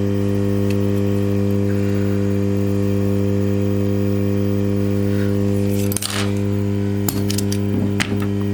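Steady electrical hum, with a few sharp clicks and short scrapes of small metal tools from about six seconds in.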